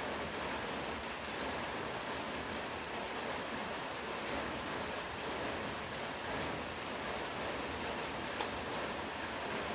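Steady, even rushing noise with no distinct events apart from one faint click about eight seconds in.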